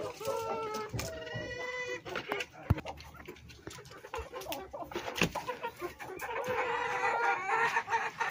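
Chickens clucking and calling, with a drawn-out call in the first two seconds and busier clucking near the end. A couple of sharp knocks come in between.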